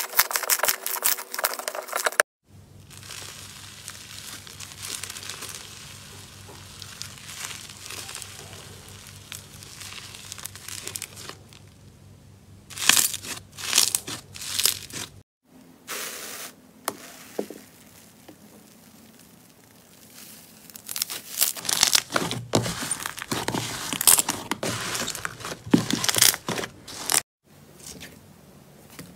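Slime being squeezed, stretched and pressed by hand, giving bursts of crackling, crinkling and squishing with quieter stretches between.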